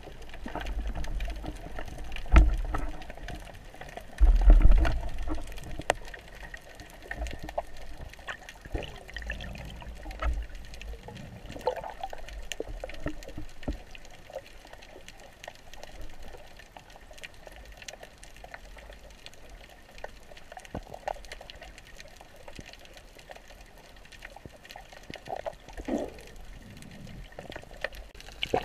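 Water sloshing and bubbling around a submerged camera, with scattered clicks and knocks and low rumbling surges, the loudest about two and four to five seconds in.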